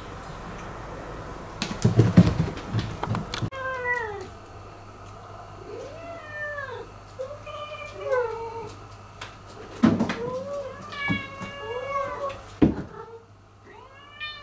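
A few knocks and thumps, then domestic cats meowing over and over at breakfast time, in a string of short meows that rise and fall and sometimes overlap. Two sharp knocks come among the meows.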